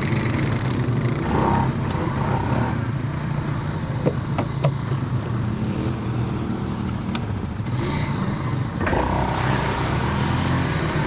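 ATV engines running steadily, growing louder about nine seconds in, with a few short sharp knocks near the middle.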